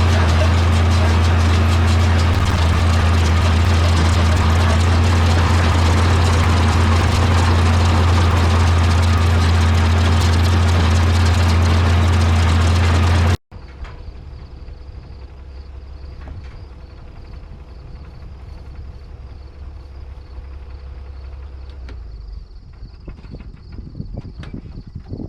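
Tractor engine running steadily at constant speed with a strong low hum, as it works a small square hay baler. About halfway through the sound cuts off abruptly to a much quieter steady mechanical hum with a faint high whine, and a few clicks come near the end.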